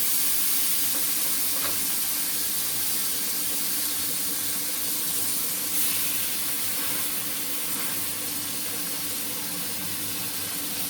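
Marinated chicken breast pieces sizzling steadily in hot butter and oil in a frying pan.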